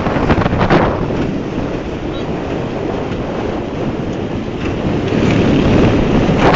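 Wind buffeting the microphone on a moving tricycle, over a steady rumble from the ride.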